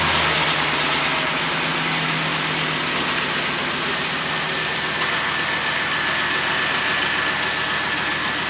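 2003 Chevy Avalanche's V8 engine idling steadily just after a start, breathing through a newly fitted aftermarket cold air intake. The idle eases slightly after about three seconds.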